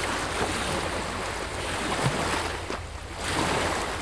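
Sea waves washing, with wind: a steady rush of water noise that swells and eases, dropping away briefly about three seconds in.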